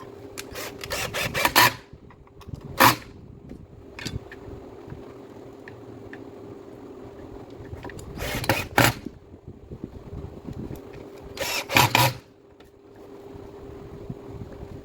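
Several bunches of sharp clicks and knocks, like parts and tools being handled and set down during a power-tool repair, over a faint steady hum.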